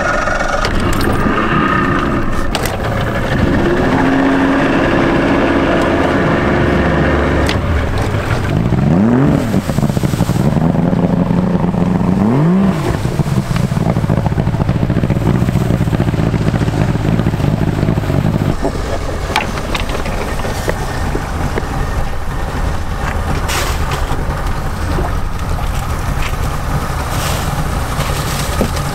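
Outboard jet-drive boat motor running: it idles, revs up and down twice, then holds a steady note under way. About two-thirds of the way through, the engine note drops out into a steady rushing noise with scattered knocks.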